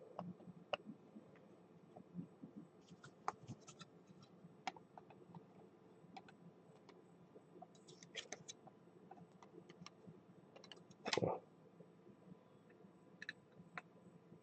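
Faint, scattered clicks and small scrapes of a trading card and a plastic card holder being handled, with one short, louder thump about eleven seconds in.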